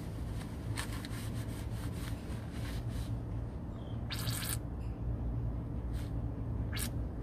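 Gear lube being squeezed from a pack into a Volvo Penta sterndrive lower unit, gurgling and spluttering as air works back out of the fill hole. Scattered faint clicks in the first three seconds, a short hiss about four seconds in and another near the end, over a steady low hum.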